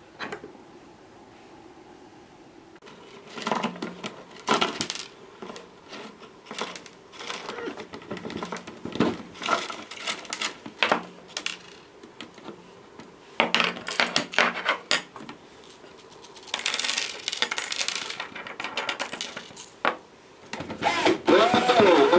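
Coins dropping and clinking on a table, a scatter of sharp clicks and rattles in irregular clusters, starting about three seconds in.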